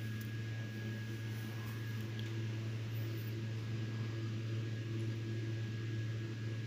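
Steady low machine hum with a faint, thin high whine, unchanging throughout.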